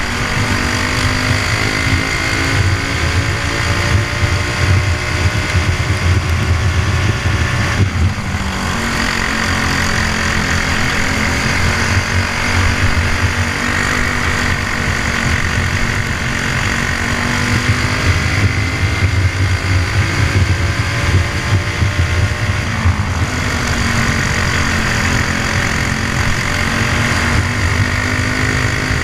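Briggs & Stratton Animal kart engine at racing speed, heard onboard. Its pitch climbs steadily down the straights, drops sharply as the throttle comes off for a corner about eight seconds in and again about twenty-three seconds in, then climbs again.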